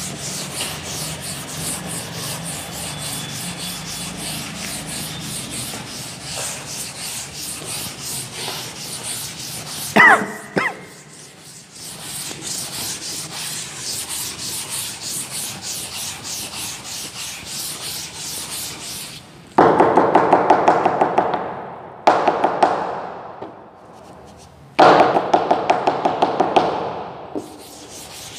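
Chalkboard duster wiping chalk off a board in quick back-and-forth scrubbing strokes. There are a couple of sharp knocks about ten seconds in, and three louder, harsher bouts of rapid strokes in the last third.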